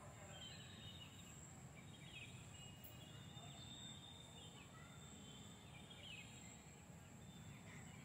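Quiet outdoor garden ambience: distant small birds chirping now and then over a low background rumble, with a steady high-pitched whine throughout.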